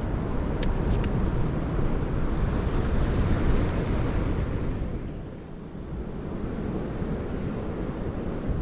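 Wind buffeting the microphone in a steady low rumble, with the sea washing in behind it; two faint clicks about a second in.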